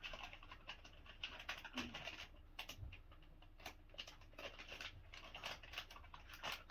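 Plastic packet being handled and opened: irregular crinkles, scratches and small clicks.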